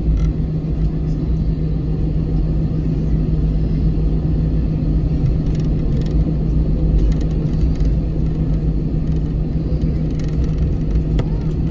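Airbus A321 jet engine and airflow noise heard inside the cabin: a loud, steady low rumble with a steady hum under it.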